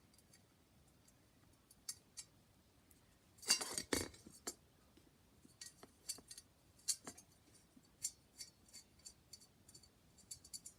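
Small metal screws and fan light-kit parts clicking and clinking as they are handled and set in place, a louder cluster of clinks about three and a half seconds in.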